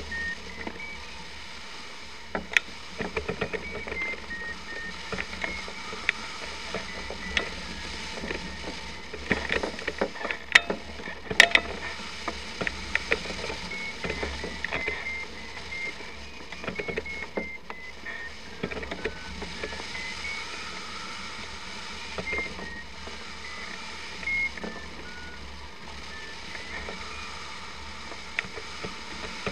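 Flight variometer beeping: short tones whose pitch steps up and down as the climb rate changes, over a steady rush of airflow, with scattered sharp clicks and knocks.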